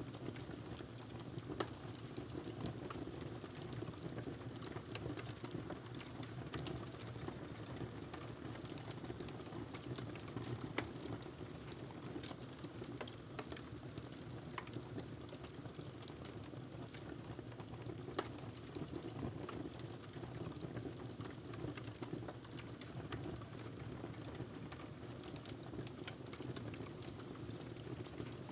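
Wood fire crackling in a fireplace: scattered sharp pops and snaps over a steady low rumble and hiss.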